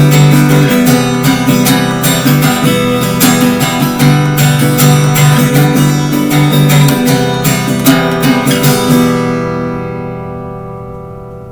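Acoustic guitar strummed in a steady rhythm, ending on a final chord that is left to ring and fade out over the last couple of seconds.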